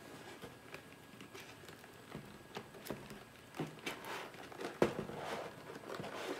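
Plastic and cardboard packaging being handled: scattered crinkling, rustling and light clicks. It grows busier in the second half, with a sharp click about three quarters of the way through.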